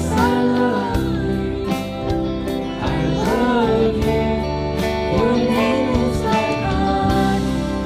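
Christian worship song: a voice singing a melody over band accompaniment with a steady beat.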